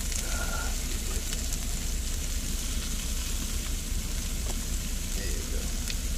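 Sausage and vegetables sizzling in a frying pan, a steady hiss, over a steady low hum, with a few faint clicks of the tongs.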